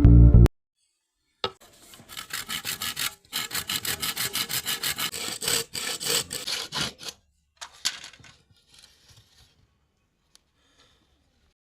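Saw cutting through bamboo in quick, even back-and-forth strokes for about five seconds, then stopping. A few light knocks and scrapes follow.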